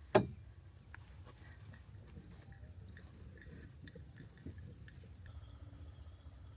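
A golf club striking the ball on a fairway second shot: one sharp crack just after the start. It is followed by a faint background with small scattered clicks.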